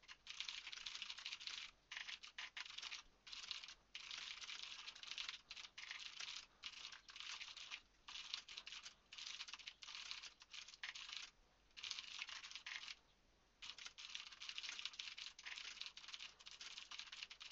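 Quiet, rapid typing on a computer keyboard: fast runs of light key clicks broken by short pauses, the longest two about two-thirds of the way through.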